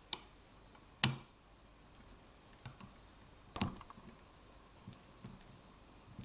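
Sharp metallic clicks and light taps from a lock pick and tension tool working the pin stack of an ASEC pin-tumbler cylinder. There are three louder clicks, the strongest about a second in, with fainter ticks between them.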